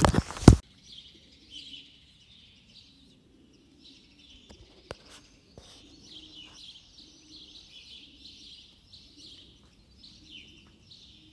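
A short loud rush of noise right at the start, then many small birds chirping and twittering in a steady, busy chatter.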